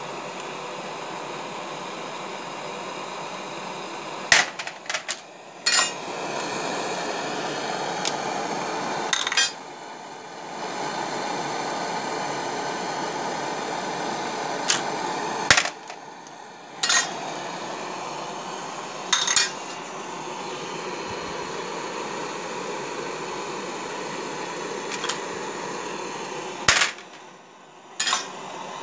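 Homemade brass case annealer running: the gas torch flame hisses steadily while annealed 7.7 Japanese rifle cases drop every few seconds with sharp metallic clinks into the aluminium catch pan.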